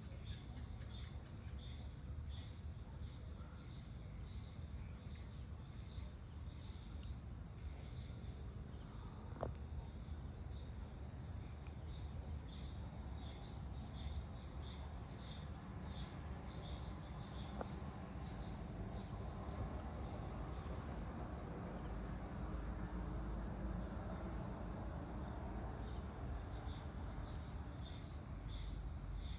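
Evening chorus of crickets and other insects: steady high trilling with repeated short chirps over it. Underneath is a low rumble that grows a little louder past the middle, and there are a couple of faint ticks.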